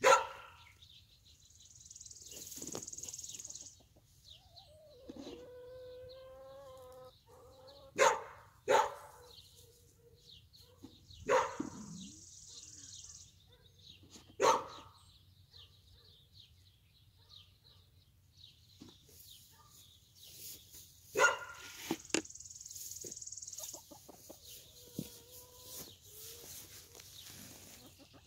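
Animal calls: short, sharp, loud calls at irregular intervals, the loudest right at the start and about eight and twenty-one seconds in. A lower, pitched call is drawn out for a couple of seconds about five seconds in.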